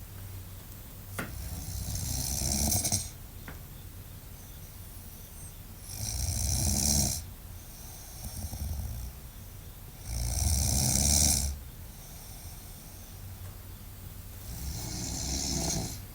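A sleeping person snoring: four long snores about four seconds apart, each swelling louder before breaking off.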